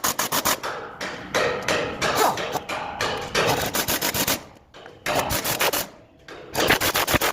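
Workshop tool work: bursts of rapid, sharp knocks near the start, about five seconds in and again near the end, with rough scraping noise between them.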